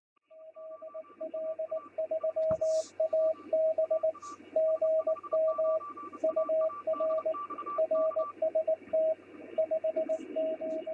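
Morse code (CW) heard through a radio receiver: a single beep tone keyed on and off in dots and dashes over steady receiver hiss, with a few faint crackles.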